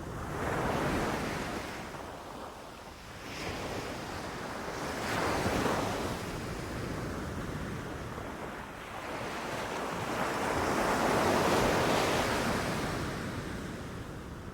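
Ocean waves breaking and washing on a beach, the surf rising and falling in several surges, the longest swelling about ten seconds in and fading toward the end, with some wind.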